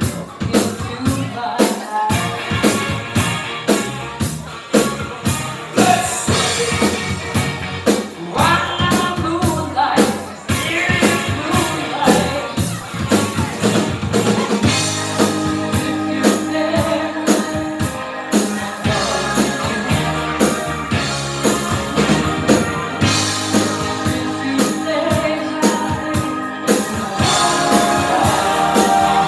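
Live rock band playing loudly: drum kit keeping a steady beat under electric guitar and bass, with a woman singing lead into a microphone.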